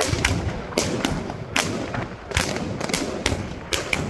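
Funke Fireball 200 firework cake firing shot after shot: a rapid, irregular string of sharp cracks and bangs, two or three a second, as each shot launches and bursts.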